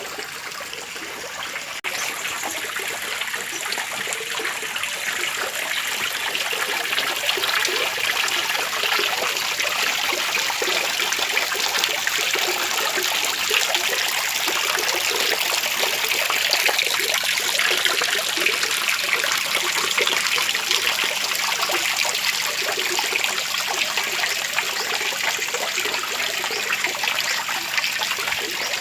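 Small fall of water trickling and splashing steadily, stepping up a little in level about two seconds in.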